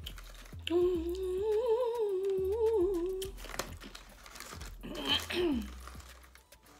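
A woman humming with her mouth closed while eating, a wavering tune for about two and a half seconds, then a short 'mm' that falls in pitch near the end.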